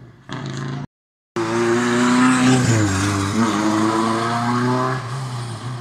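Historic rally car's engine revving hard under full throttle, its pitch dipping and climbing, then fading near the end. All sound drops out completely for about half a second, about a second in.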